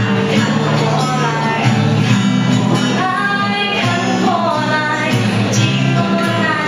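A young woman singing a Mandarin pop song, accompanying herself by strumming an acoustic guitar, both amplified through microphones.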